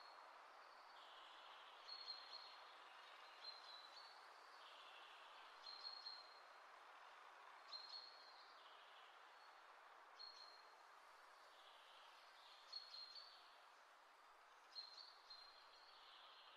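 Near silence: a faint steady hiss, with short high chirps repeating every couple of seconds.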